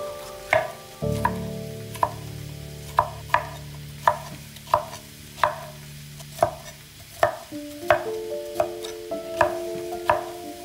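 Chef's knife chopping orange bell pepper on a wooden cutting board: a sharp knock with each cut, irregular, about one to two a second, over soft background music.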